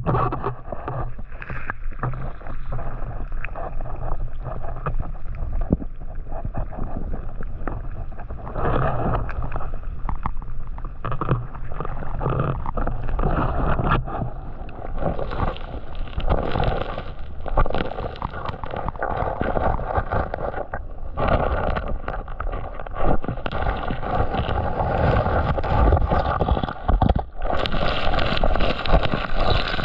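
Creek water splashing and gurgling as gravel is swished and washed through in the current, a continuous uneven sloshing.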